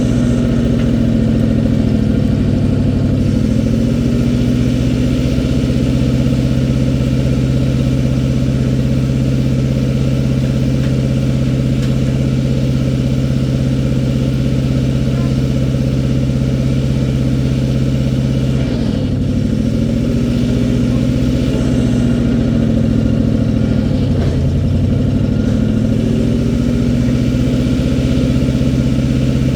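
Old International backhoe's engine running steadily. Its pitch sags briefly and recovers three times: near the start, about two-thirds of the way through, and again a few seconds later.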